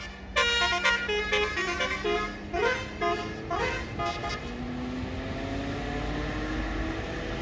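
Bus basuri telolet horn playing a quick melody of short stepped notes, fading out about four seconds in. A bus engine follows, its low note rising slowly.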